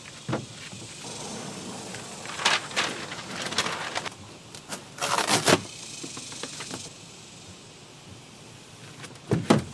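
Paper release liner of self-adhesive foam decking rustling and crackling as it is peeled off and handled, in a few short bursts. A dull thud comes near the end.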